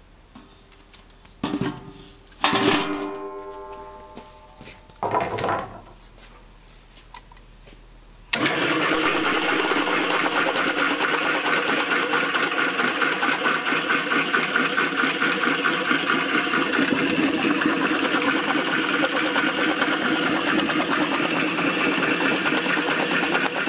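Fruit dropping into an empty stainless-steel hopper in a few separate impacts, one of which makes the steel ring as it fades. About eight seconds in, the electric fruit slicer's motor switches on abruptly and runs loud and steady as the machine shreds the fruit down through the hopper.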